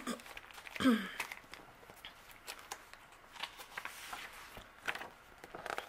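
Paper, card stock and a cellophane bag being shuffled and handled: scattered rustling and light taps, with a brief vocal sound about a second in.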